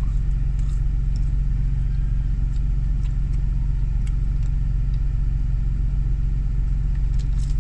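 A car engine idling, heard from inside the cabin as a steady low hum. A few faint clicks and rustles of eating sound over it.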